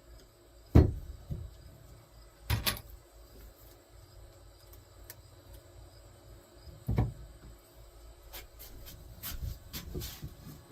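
Wooden boards being handled and set in place for assembly: a sharp knock about a second in, two more solid knocks later, and a few light clicks and taps near the end.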